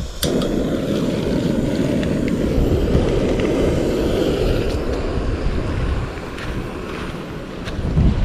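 Portable gas canister stove burning with a steady roar under a steel bowl of water. The roar starts abruptly just after the beginning and is a little quieter over the last couple of seconds.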